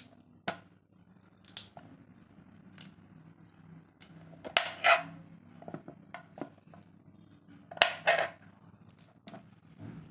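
A blade scraping the skin off a white radish (mooli) against a plastic chopping board, in irregular short strokes, the loudest coming in pairs about halfway through and near the end.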